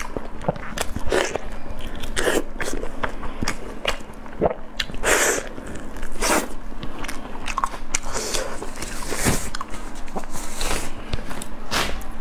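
Close-miked eating sounds: biting and chewing chicken thigh meat, with the meat being torn apart by gloved hands. Many irregular short clicks throughout.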